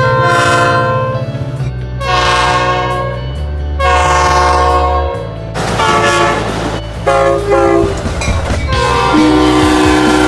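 A string of locomotive horn blasts, one after another, each a steady chord of several notes lasting one to two seconds, the chord changing from blast to blast, over a deep rumble of passing trains.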